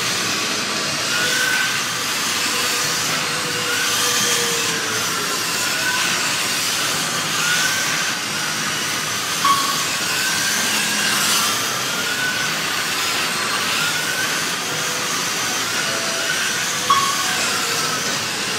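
Electric slot cars running on a large multi-lane track, their small motors whining and rising and falling in pitch as they speed up and slow through the corners, over a steady hiss. Two short sharp clicks stand out, about halfway through and near the end.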